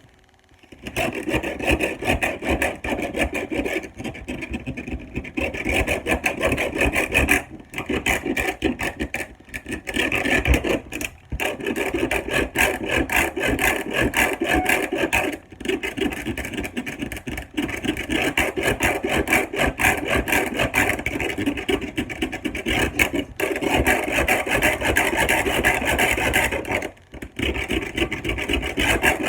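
Serrated Ginsu knife drawn again and again through a block sharpener: a steady rasping of steel on the sharpener, broken by brief pauses every few seconds. The knife is being given more strokes to bring back a dull edge.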